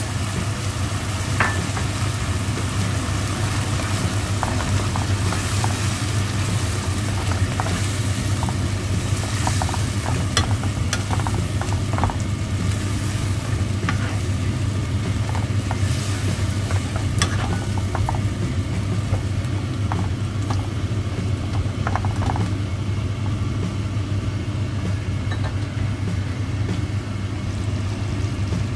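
Chicken pieces sizzling and simmering in a creamy sauce in a nonstick pan, with a spatula stirring and scraping in scattered clicks. A steady low hum runs underneath.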